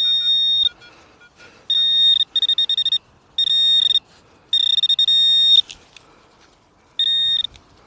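Metal-detecting pinpointer beeping as it is probed through loose soil: a steady high electronic tone in about six bursts of half a second to a second each, signalling a metal target close by.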